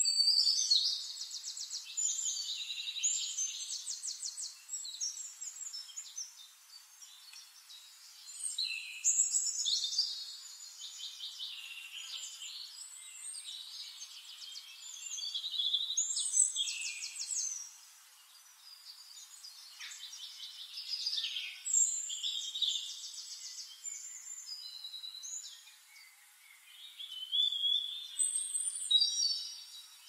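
Songbirds singing: about five bursts of high, rapidly trilled song phrases a few seconds apart, over a faint hiss.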